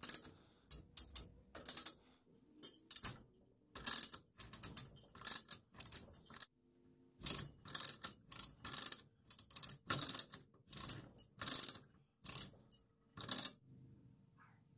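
Hand-operated chain hoist clicking its ratchet in short bursts as it is worked to lift an engine on chains, with a pause about halfway and stopping near the end.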